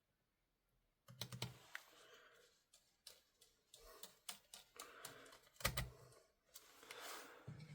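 Small clicks, taps and scraping from hands and a screwdriver working on an airsoft AK during reassembly, fitting its screws. The sounds start about a second in, with a few duller knocks among them.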